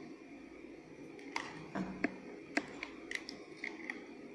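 Scattered small clicks and light handling noises of a camcorder and USB cable being handled and plugged in, about eight short ticks from around a second and a half in.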